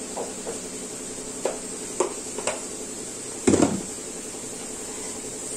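Kitchen dishes and utensils clinking and clattering: several light clinks, then a louder knock about three and a half seconds in, over a steady hiss.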